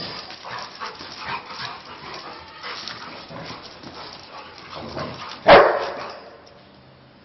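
Pet dog barking while being called to play with a ball, with one loud bark about five and a half seconds in, the loudest sound here.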